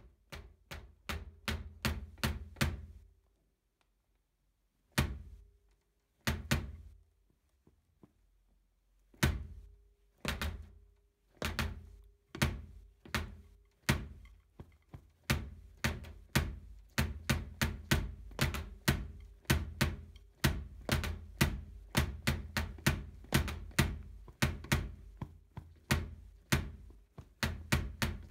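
Kick drum pedal's beater striking a mesh bass drum head, played acoustically, picked up by a phone's built-in mic: dull thuds. The first half has a few single strokes and quick doubles with pauses between; from about halfway it runs into a fast, continuous kick pattern.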